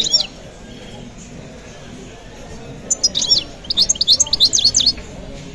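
Caged songbird singing: a short chirp at the start, then about two seconds of fast, high twittering from around three seconds in.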